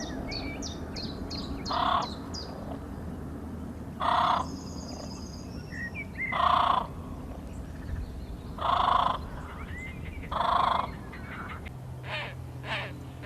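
Crow cawing repeatedly: five loud caws about two seconds apart, with small birds chirping high in the background and a quick series of shorter calls near the end.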